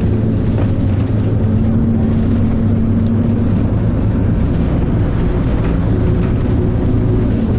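Steady engine drone with a low hum, heard from on board a moving vehicle.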